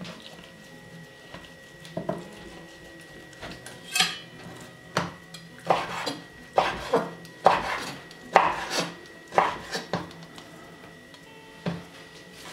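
Chef's knife slicing raw moose meat into thin strips across the grain and knocking on a wooden cutting board: a quick run of sharp knocks from about four to ten seconds in, with a few single knocks before and after.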